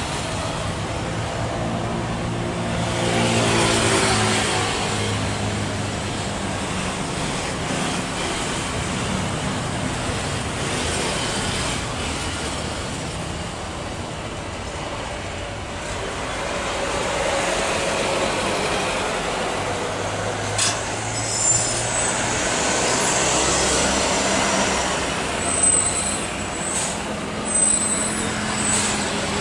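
Jet airliner engines, a Lion Air Boeing 737-800, running steadily as it rolls down the runway and takes off, with the noise swelling twice. A few short sharp knocks come near the end.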